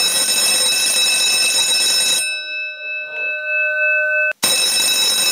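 An electric alarm bell ringing loudly and continuously. About two seconds in the rattle stops and only the bell's tone sounds on, fainter. There is a brief break a little past four seconds, then loud ringing again.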